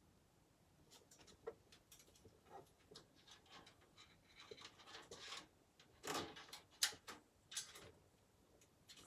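Faint, scattered clicks, taps and rustling from small computer parts and packaging being handled during a PC build, with a few louder rustles and clicks about six to eight seconds in.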